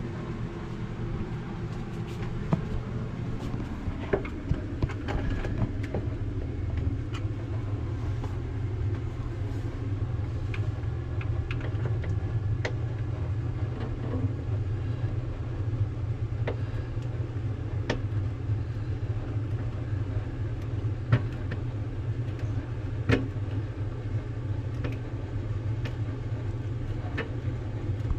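Scattered light clicks and taps of a small screwdriver and fingers working at the plastic shelf brackets and tiny screws inside a refrigerator, a few of them sharper. Under them runs a steady low rumble.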